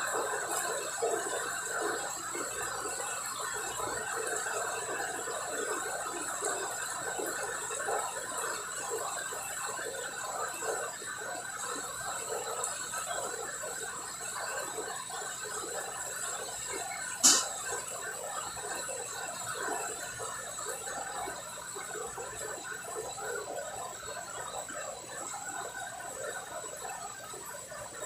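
Commercial deep fryer's oil bubbling and crackling steadily as food fries, with a faint steady high whine throughout and one sharp click about two-thirds of the way through.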